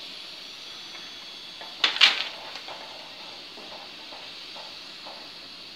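Potato fries deep-frying in hot oil in a steel karahi, a steady sizzle, with one sharp clink of a steel spoon against the pan about two seconds in.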